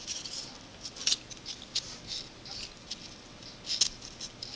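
Light clicks and scrapes of a Crop-A-Dile metal hole punch being turned over and handled, with a few sharper clicks about a second in and near the end.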